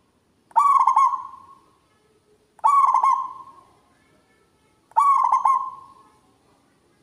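Zebra dove (perkutut) singing its cooing song three times, about two seconds apart: each phrase a quick run of staccato notes rolling into a trilled coo that fades out.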